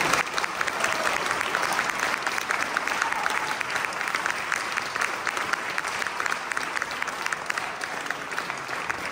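Audience applauding after a choral song, with one pair of hands close by clapping in a steady beat above the general clapping.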